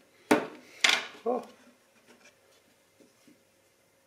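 A smartphone knocked twice on a hard tabletop and scraped along it as it is handled and picked up, followed by a brief low pitched sound.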